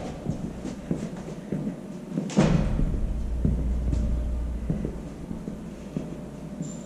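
A door bangs shut with a thud a little over two seconds in, among small knocks and clatter; a low rumble starts with it and slowly fades.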